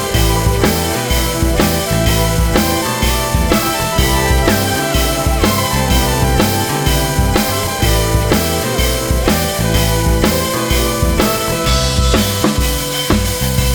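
Background music with a steady drum-kit beat: bass drum, snare and rimshots under sustained pitched instrument notes.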